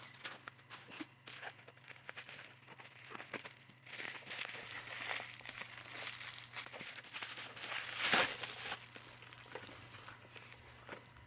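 Packaging crinkling and tearing in irregular bursts as a mailed parcel is unwrapped by hand, with one louder rustle about eight seconds in.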